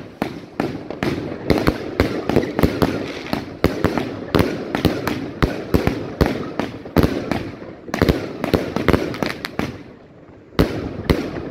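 Volt "Glitter Willow 2 Colorz" firework cake firing shot after shot: sharp launch reports and bursts, several a second. A short lull comes near the end before the shots start again.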